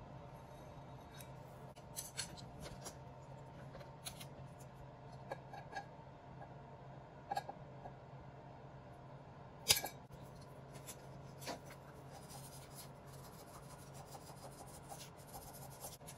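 Scissors working at a candle wick in a glass jar, amid quiet handling: scattered light clicks and taps, with one sharp click about ten seconds in. A low steady hum runs underneath and fades out about twelve seconds in.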